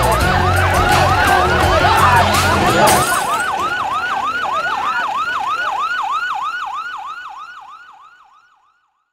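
Police vehicle siren in a fast yelp, its pitch scooping down and back up about three times a second. Loud music and crowd noise under it cut off about three seconds in, and the siren then fades out near the end.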